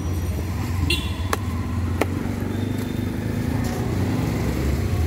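Large knife scraping the scales off a big rohu fish on a wooden block: a few sharp scrapes and clicks, about one, one and a half and two seconds in, over a steady low rumble of vehicle engines.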